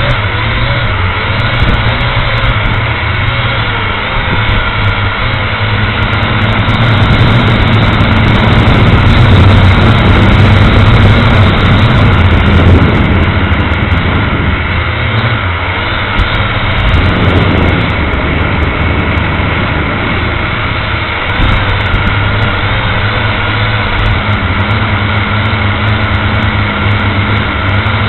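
Small multirotor camera drone's electric motors and propellers buzzing steadily as heard from its own onboard camera, getting louder in the middle and dipping briefly past the halfway point as it manoeuvres.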